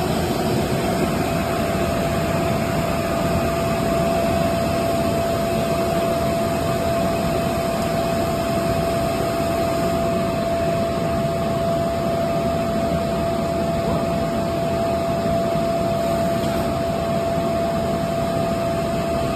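Air-flotation blower of a glass breaking table running steadily: even rushing noise with a constant whine.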